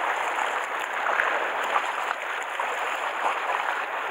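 Sea waves washing and splashing against a rocky shore: a steady hiss of moving water with small splashes scattered through it.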